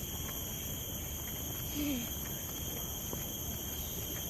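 Steady, high-pitched chorus of insects, crickets or cicadas, holding several constant tones at once. A brief voice-like sound rises and falls about two seconds in.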